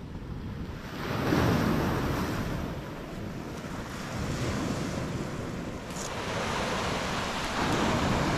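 Surf washing onto a beach, a steady wash that swells about a second in and again near the end.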